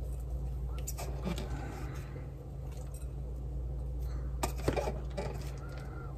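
Grated Parmesan being pinched out of a plastic jar and dropped into a glass mixing bowl: quiet handling sounds with a few light clicks and taps, the clearest about a second in and a little after four seconds in, over a steady low hum.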